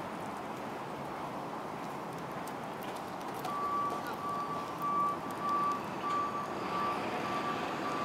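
A vehicle's reversing alarm beeping: a single high tone repeated at an even pace of about two beeps a second, starting a few seconds in, over steady outdoor background noise.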